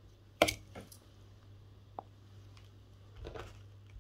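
Fingertip taps and handling on an AudioCodes C470HD desk phone's touchscreen: a quick cluster of clicks about half a second in, a single short tick at two seconds and a soft scuff a little after three seconds, over a faint steady low hum.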